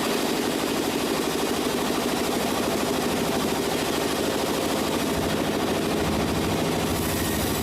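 An engine running at a steady speed, with a rapid, even pulsing beat.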